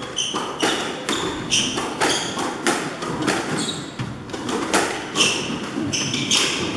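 A squash rally in an echoing court: a rapid run of sharp knocks as the ball is struck by the rackets and hits the walls, mixed with short high squeaks of court shoes on the wooden floor.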